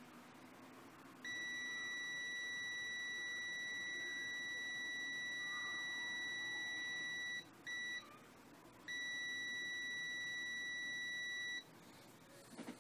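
Extech EX355 multimeter's continuity beeper sounding a steady high-pitched tone as the probes read a bulb filament of about 9 ohms. It cuts out twice: about six seconds on, a brief half-second beep, then about three seconds more. The dropouts are the intermittent beeping interruptions the owner reports on this meter. A short handling knock comes near the end.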